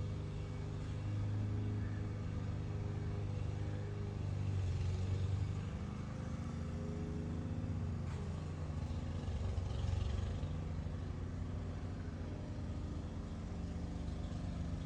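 A motor vehicle's engine running steadily with a low rumble, its hum drifting slightly in pitch partway through.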